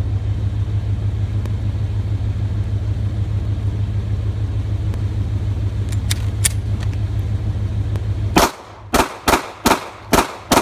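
A car engine idling with a steady low rumble, a couple of faint clicks about six seconds in, then from about eight seconds a rapid string of about six shots from a Glock 23 .40 S&W pistol, each one sharp and loud. The engine rumble is gone once the shooting starts.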